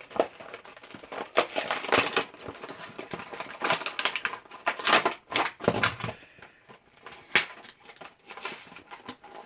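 Beyblade Burst toy box packaging being opened by hand, an uneven run of crinkling, crackling and sharp clicks.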